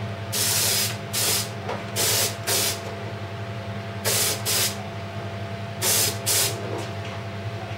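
Air spray gun spraying glaze in short hissing bursts, mostly in pairs, about eight in all, as the bowl is turned between passes. A steady low hum runs underneath.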